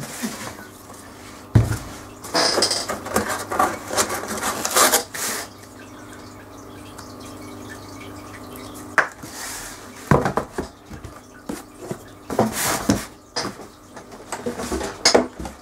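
A pair of winter hiking boots being packed back into a cardboard shoe box: scattered knocks of the rubber soles and box, with tissue paper rustling.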